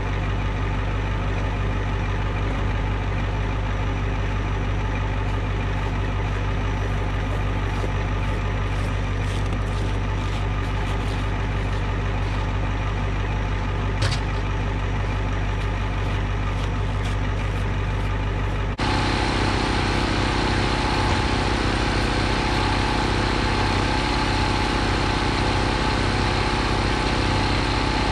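Small portable generator engine running steadily, powering a loader's engine block heater at −27 °C. A click about halfway through, and about two-thirds of the way through the sound abruptly gets louder and fuller.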